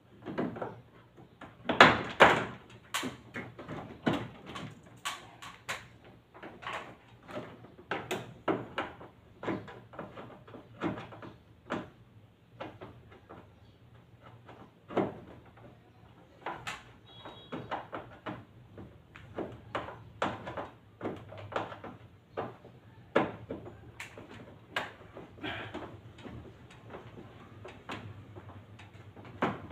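Irregular clicks, knocks and rattles of plastic parts as the casing of a Carrier split-type air conditioner's indoor unit is handled and taken apart by hand, with two loud knocks about two seconds in.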